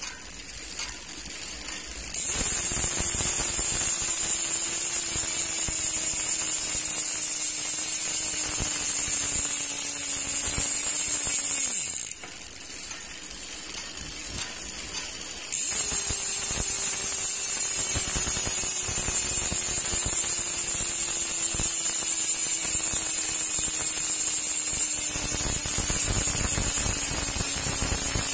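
Speedone Soldier six-pawl bicycle rear hub freewheeling after a hard pedal spin: a fast, loud ratchet buzz whose pitch slowly falls as the wheel slows. It cuts off about twelve seconds in and starts again with a second spin a few seconds later, again falling slowly.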